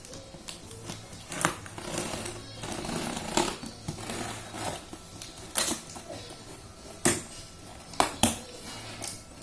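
Irregular clicks, knocks and rustles from a laptop and its packaging being handled, with sharper clicks about one and a half, three and a half, five and a half, seven and eight seconds in.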